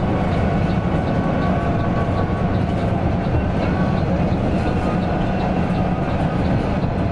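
Mercedes-Benz OC 500 RF 2542 coach under way, heard from inside: a steady low engine drone mixed with road and tyre noise, with faint regular ticking or rattling.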